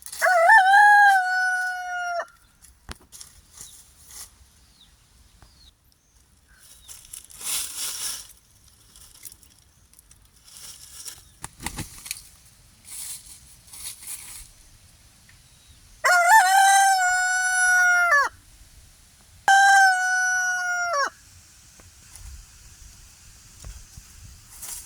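Free-range rooster crowing three times: one long crow right at the start, then two more in quick succession near the end. Each crow holds a steady pitch and drops off at the end, with fainter short noises in the pauses between.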